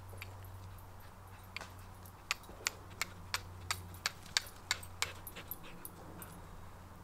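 Small dry sticks snapped by hand: a quick run of about ten sharp cracks over some three seconds, in the middle of the stretch.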